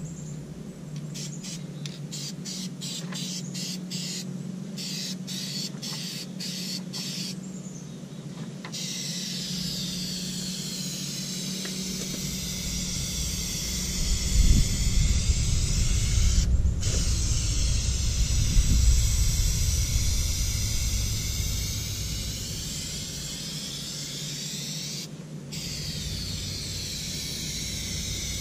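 Aerosol spray paint can spraying: first a quick series of short spurts, about two a second, then long continuous hissing passes broken by two brief pauses. A low rumble runs underneath through the middle.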